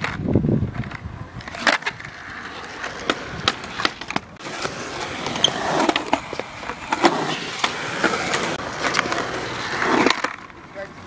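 Skateboard riding a concrete bowl: the wheels rumble over the concrete, with several sharp clacks of the board striking the surface and coping.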